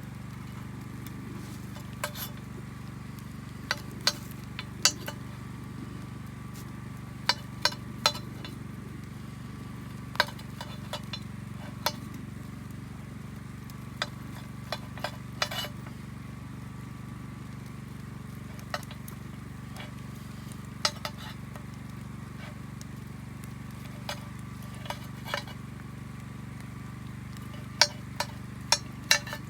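Pork ribs sizzling over a campfire over a steady low background, with about twenty sharp, irregular pops and clicks.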